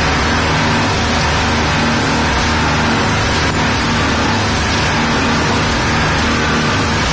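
Speedboat running at speed across open sea: a steady engine drone under a constant rush of wind and water spray off the hull.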